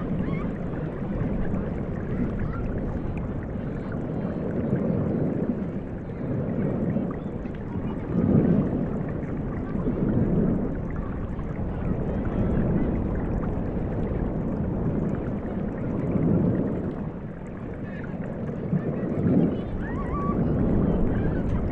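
Steady wash of ocean waves rising and falling every couple of seconds, with faint distant children's voices and shouts.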